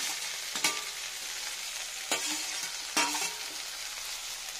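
Water spinach sizzling in hot mustard oil and garlic in a kadai, with a metal slotted spatula clinking sharply against the metal plate and pan about three times as the greens are scraped in.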